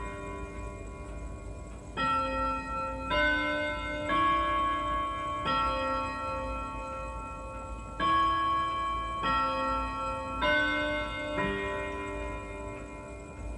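Antique wooden wall clock chiming the hour on its gongs: a tune of ringing struck notes of changing pitch, about one a second, with a short pause a little past the middle.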